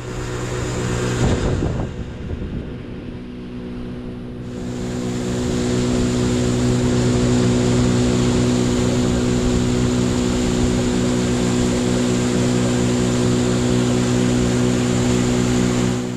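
Boat's outboard motor running under way: a steady engine hum with a rushing hiss of water and air, growing louder about four to five seconds in.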